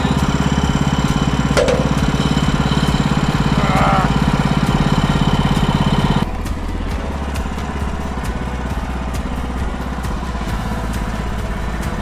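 Gas engine of a portable bandsaw sawmill running steadily at the log. About six seconds in it cuts off abruptly to a quieter, lower engine hum.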